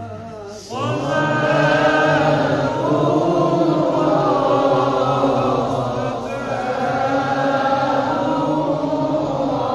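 A man's voice chanting in Arabic in the melodic Qur'an-recitation style. One long ornamented phrase begins with a rising note under a second in and moves through long, wavering held notes.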